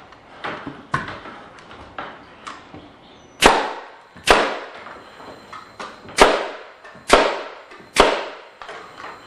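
Pneumatic framing nailer driving nails into a wooden joist: five sharp shots, each with a short ringing decay, the first about three and a half seconds in and then roughly one a second. A few lighter knocks come before the shots.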